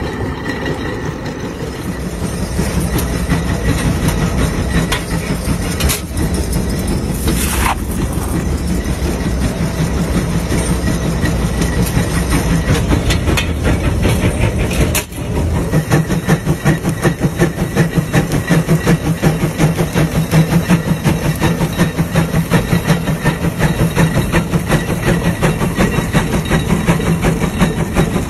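Large steam traction engine working, its exhaust chuffing in a fast, even rhythm with mechanical clatter; the beat grows louder and sharper in the second half.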